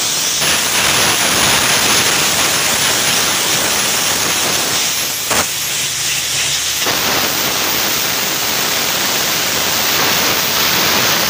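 Borewell drilling rig running with a loud, steady hissing rush of air, with a single sharp knock about five seconds in.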